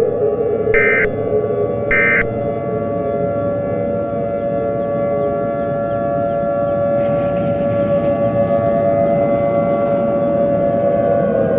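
Civil defense siren sounding a steady wail, its pitch sagging near the end as it begins to wind down. Two short high beeps sound over it in the first couple of seconds.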